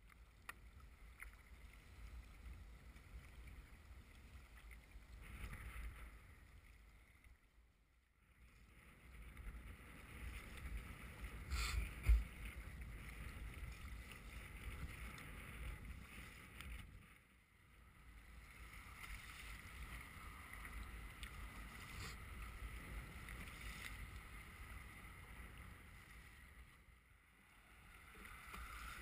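Faint, steady rush of wind and choppy water around a sea kayak being paddled, with one sharp knock about twelve seconds in. The rush drops away briefly three times.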